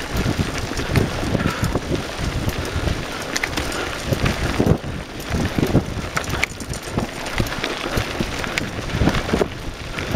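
Wind buffeting the microphone of a mountain-bike-mounted camera riding rocky singletrack, with the tyres crunching over loose stones and the bike and mount rattling in frequent clicks and knocks.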